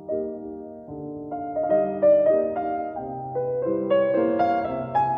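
Background piano music: a melody of single notes over held chords.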